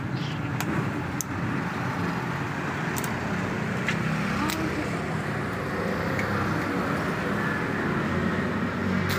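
Steady rumble of motor-vehicle engines and road traffic, with a low engine hum that grows slightly stronger near the end and a few brief sharp clicks.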